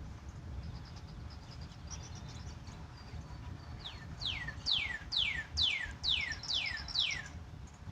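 A bird singing a run of about eight clear whistles, each sliding steeply down in pitch, about two a second, in the second half, after a few faint high chips.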